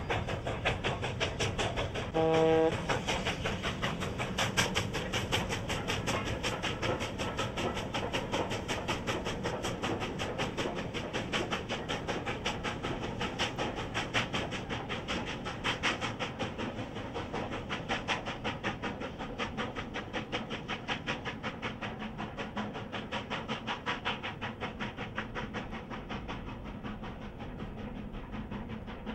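Southern Pacific 4449, a GS-4 4-8-4 steam locomotive, working at speed with rapid, even exhaust beats from its stack. A brief whistle toot about two seconds in.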